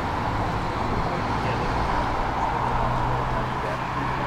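Street traffic noise with a steady low vehicle hum that shifts slightly in pitch about two seconds in, over background voices.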